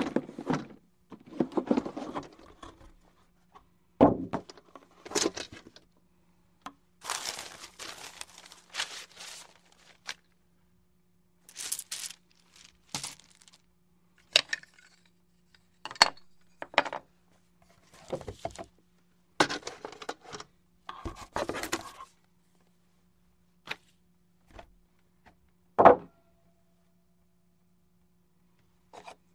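A board game being opened and handled: irregular thunks and knocks of the box and pieces, with tearing and crinkling, the loudest a sharp knock late on.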